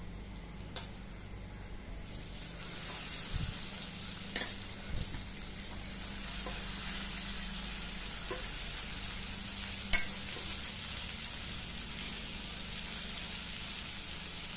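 Masala-stuffed brinjals sizzling as they fry in hot oil in a kadai. The sizzle grows louder about two and a half seconds in as more brinjals go into the oil, and a few sharp clicks stand out, the loudest about ten seconds in.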